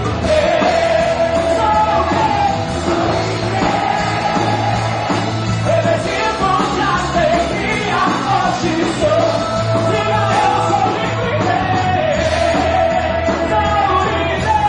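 Live worship band with sung vocals playing an upbeat, rock-style song, with some shouting.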